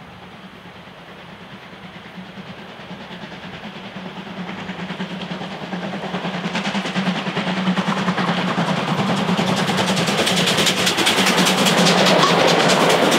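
Steam locomotive 01 519 approaching at speed with its passenger train and passing close by. It grows steadily louder, with a fast, dense rattle of exhaust beats and running gear coming through from about halfway. It is loudest near the end as it runs past.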